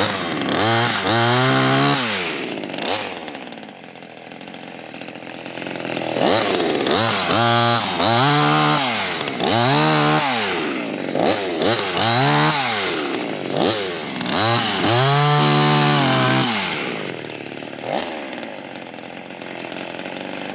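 Small, lightweight clone gas chainsaw revved up hard and let back down about six times, with quieter idling stretches between, as it cuts brush clear around a small tree.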